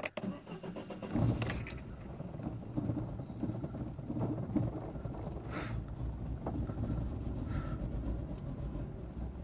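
Fiat Tempra SW engine being started: the starter cranks for about a second, then the engine catches and settles into a steady idle.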